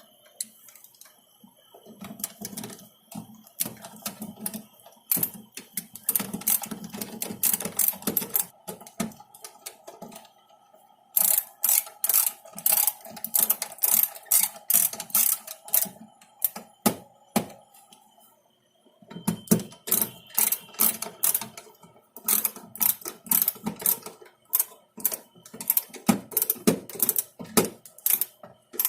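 Rapid, irregular clicking and rattling of small metal parts being handled and screwed together as a power supply's cooling fan is fitted back into its housing, with two short pauses.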